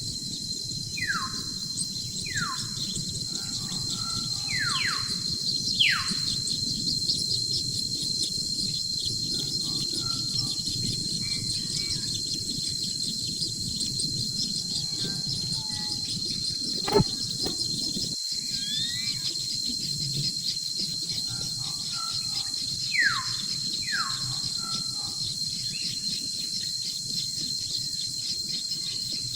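Insects drone steadily at a high pitch. Over it come a few short bird calls, each sliding downward in pitch: four in the first six seconds and two more about three-quarters of the way through. A single sharp click comes near the middle.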